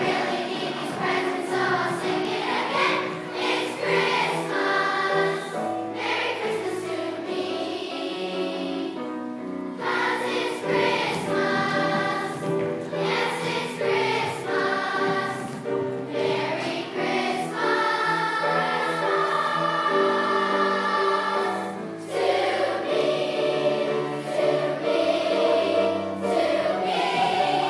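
A choir singing a song in harmony, with several voices holding chords together.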